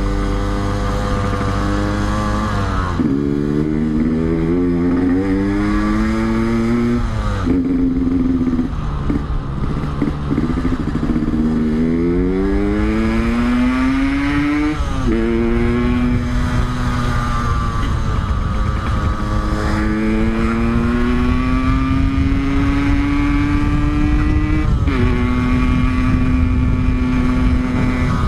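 Yamaha RX-King's two-stroke single-cylinder engine, fitted with an Altec C20 exhaust, accelerating while riding. The engine pitch climbs, drops suddenly at each gear change (four times), then climbs again, with a long slow rise through the second half.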